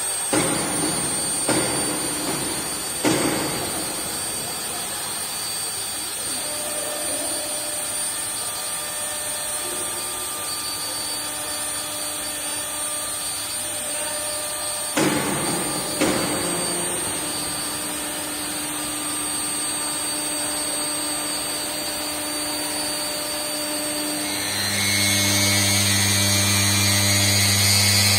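Four-axis CNC router running, with a steady high-pitched whine over machine noise and a few sharp knocks in the first few seconds and again around the middle. Near the end a louder, deep steady hum comes in.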